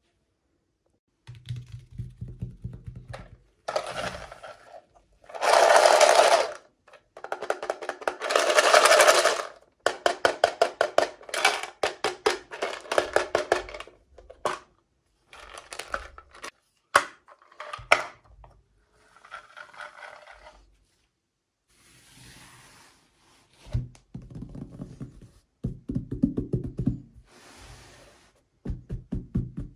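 Unboxing handling noises from small toy packaging: a series of separate bursts of crinkling and rustling, the two loudest about five and eight seconds in, then quick runs of small clicks, and near the end several low dull knocks on a surface.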